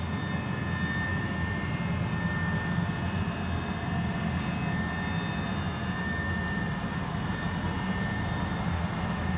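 Steady engine noise inside an aircraft cabin in flight: a low drone with a thin, steady high whine running through it.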